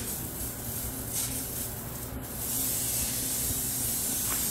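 Pump-up pressure sprayer's wand spraying a jet of liquid onto a tile floor: a steady hiss that breaks off briefly about halfway, then comes back louder.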